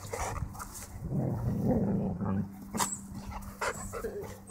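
Two dogs play-fighting: a low growl for about a second and a half, with a few short barks or yips around it.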